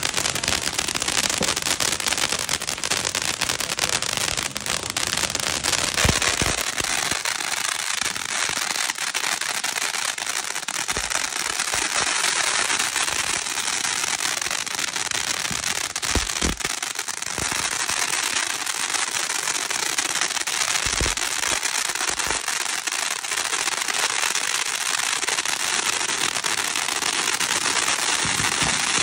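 Ground fireworks fountains spraying sparks: a steady, dense hiss and crackle of burning stars, with a few dull low thumps scattered through.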